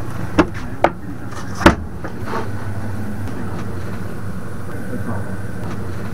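A steady low mechanical hum, like an engine running, with three sharp knocks or clicks in the first two seconds, the third the loudest.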